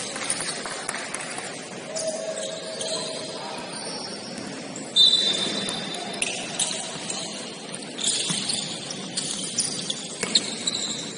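Sounds of play on an indoor basketball court: sneakers squeaking on the hardwood in short, high squeals, the loudest about five seconds in, with the ball bouncing and the hum of the gym.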